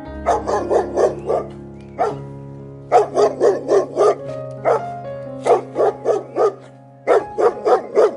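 A dog barking in quick runs of five to seven barks, with single barks between the runs, over background music with steady held tones.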